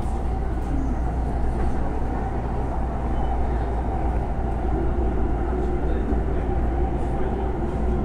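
JR East E231-500 series electric train running, heard from inside the car: a steady rumble of running noise, with faint traction-motor tones that shift in pitch about halfway through.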